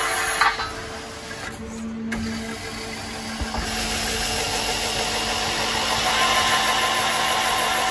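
Peddinghaus Avenger beam drill line running with a steady machine hum. There is a sharp knock about half a second in, and from about four seconds the sound grows louder and hissing, with a whine, as the spindle's twist drill cuts into the steel beam.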